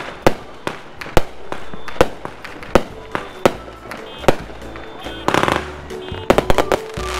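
Aerial fireworks going off: a string of sharp bangs about every half second to second, with dense crackling bursts near the end. Background music fades in about halfway through.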